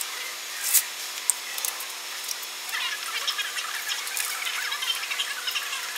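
DLP resin 3D printer at work: a steady hiss, with two sharp clicks in the first second and a half. From about three seconds in comes a fine, dense crackling like liquid, as the build plate works in the resin vat.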